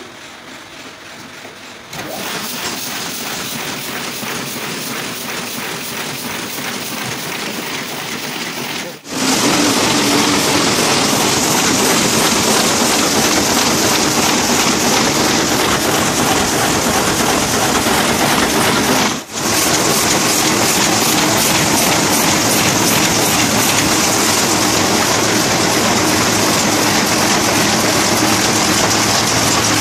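Heidelberg GTO sheet-fed offset press running, its feeder and rollers clattering in a fast, even machine rhythm. Quieter for the first couple of seconds, then louder from about nine seconds in, with a brief break near the middle.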